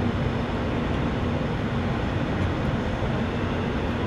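Steady low rumble of an idling heavy vehicle engine, with a constant hum that holds one pitch throughout.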